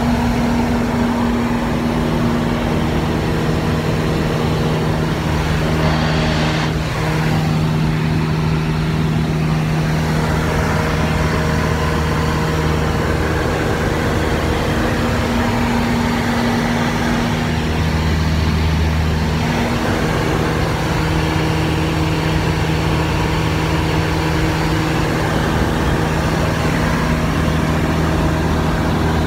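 Single-engine propeller light aircraft in flight, heard inside the cockpit: the piston engine and propeller make a loud, steady drone, with slight shifts in its low tones partway through.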